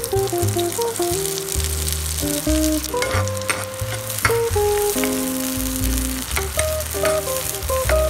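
Chopped onions sizzling as they fry in hot oil in a nonstick pan, stirred with a spatula, with a few sharp clicks from the stirring. Background music plays throughout.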